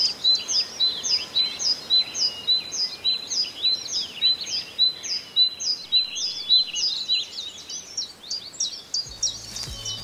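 Woodland songbird singing: one high phrase repeated over and over, about twice a second, with other birds calling faintly behind it.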